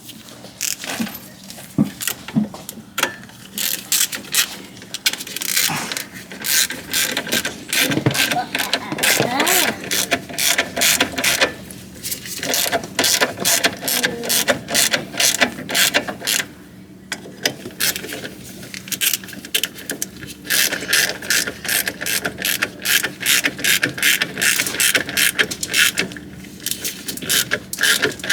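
Hand ratchet wrench clicking rapidly in long runs, with a few short pauses, as Loctite-coated brake fasteners are run down snug.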